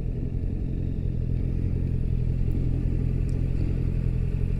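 Motorcycle engines running at low revs side by side, a steady low hum with no revving. The nearest is the camera rider's Yamaha MT-07.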